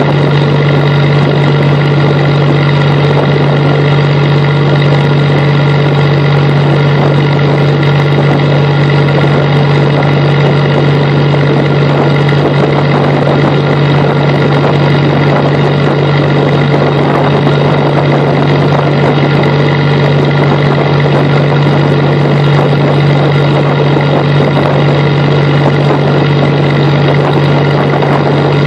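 Fishing boat's engine running at a steady speed under way: a loud, unchanging drone with a strong low hum.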